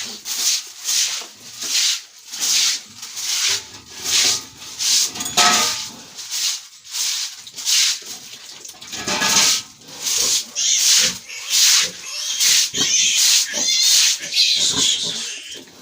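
Broom strokes scraping across a pig pen floor, about two a second, with a pig grunting a couple of times in between.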